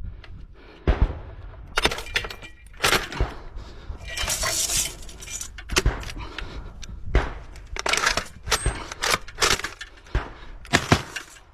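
AGS-17 automatic grenade launcher firing, heard as sharp cracks with a metallic clink, about a dozen at uneven spacing, roughly one or two a second.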